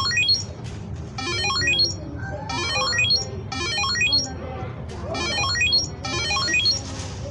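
Looped electronic music: a short, bright chime-like phrase with a quick rising run of notes, repeated about once a second. Faint voices sit underneath.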